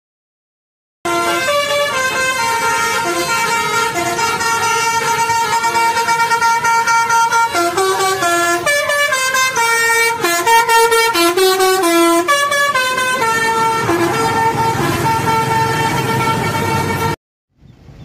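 Bus telolet horn playing a melody: a chord of several horn tones stepping up and down in pitch, with quick notes in the middle. It starts about a second in and cuts off abruptly near the end.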